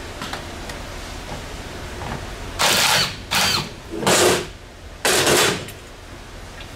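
Cordless impact driver fired in four short bursts, hammering at the bolt on the bottom of a dirt bike fork to break loose the base valve.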